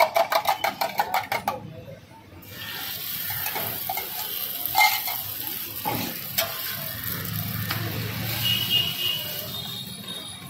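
A rapid run of sharp metallic clacks for the first second and a half, then, after a short lull, a steady sizzle of egg and oil frying on a hot flat iron griddle (tawa), with a few knocks of a steel spatula on the griddle.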